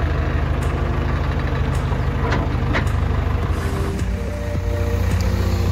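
Diesel engine of a JCB backhoe loader idling steadily, with a couple of light clicks about two and a half seconds in.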